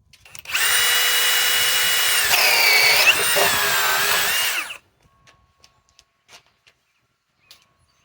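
Ridgid high-torque cordless hammer drill on speed 2 driving a 1-1/4-inch Speed Bore spade bit into wood. The motor spins up to a steady whine, then its pitch sags and wavers a couple of seconds in as the bit bites and loads it. It stops suddenly just before the five-second mark, and a few faint ticks follow.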